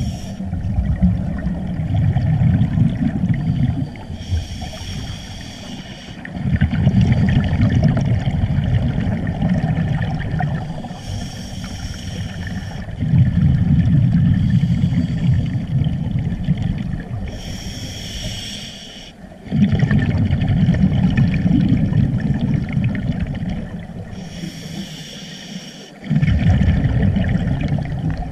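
Scuba diver breathing through a regulator underwater: a short hissing inhale of about a second and a half, then a few seconds of low bubbling as the exhaled air leaves the regulator, repeating about every six to seven seconds. There are four inhales.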